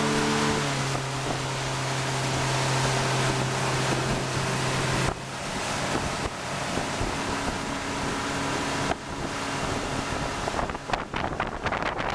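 115 hp Yamaha outboard on a bowrider running under way, its steady tone dropping in pitch early on and fading about halfway through as the boat turns. Wind buffets the microphone, more choppily near the end.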